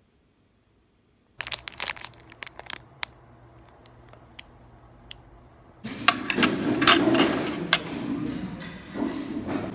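Near silence, then a small packet crinkling and clicking as it is handled in the hand. From about six seconds in, louder room noise with sharp clinks of tableware.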